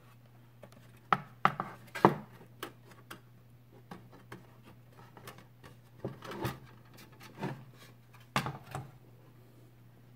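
Hands handling the black plastic case of a Channel Master DVR+ on a wooden table, tipping it up and setting it down while working the cover loose after its screws are out. Scattered clicks, knocks and rubbing, loudest about two seconds in, with more later on.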